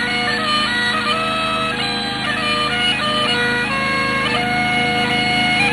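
Highland bagpipes playing a tune: a melody stepping between held notes over steady, unbroken drones.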